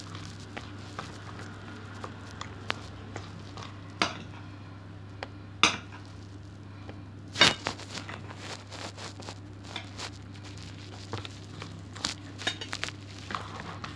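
A hand mixing and kneading flour into soft, wet yeast dough in a bowl: soft squishing with scattered knocks against the bowl, the loudest about four, five and a half and seven and a half seconds in, over a steady low hum.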